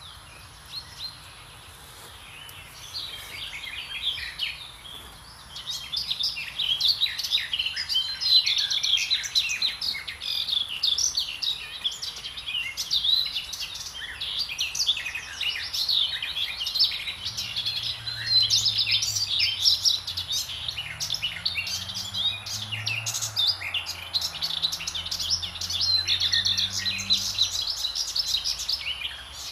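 A chorus of songbirds, many overlapping chirps and trills, building up over the first few seconds. From a little past halfway a faint low drone, its pitch slowly rising and falling, runs beneath the birdsong.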